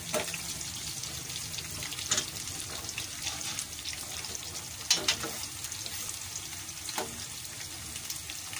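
Sliced onions sizzling steadily in hot ghee in a stainless steel frying pan, being fried to light pink for a tarka. A metal ladle stirring them gives four sharp clinks against the pan, about two seconds apart.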